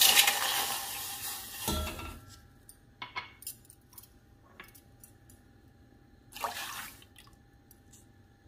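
Milk pouring from a glass into a stainless steel saucepan for about two seconds, ending with a low knock. Then a few light clicks and a second, shorter burst of noise a little over six seconds in.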